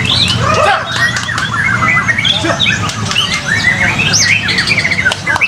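White-rumped shamas (murai batu) singing loudly in a dense, overlapping chorus of quick rising and falling whistled and chattering phrases.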